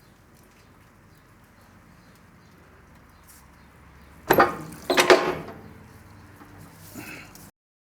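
Two loud knocks about a second apart over quiet room tone, then a fainter one, after which the sound cuts out abruptly.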